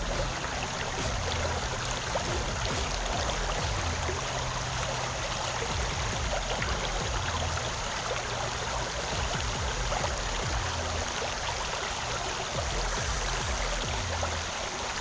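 River water flowing steadily, an even rushing of current.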